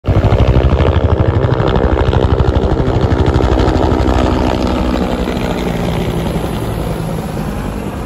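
A pair of helicopters flying low overhead: a fast, even thudding of the rotor blades, loudest at first and fading gradually as they move away.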